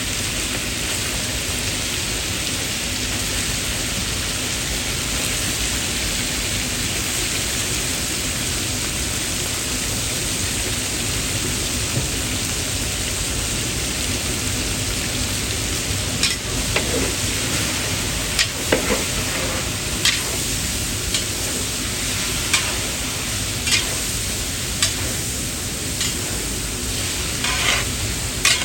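Food sizzling steadily in a cooking pot; from about halfway, a utensil knocks and scrapes against the pot roughly once a second as it is stirred.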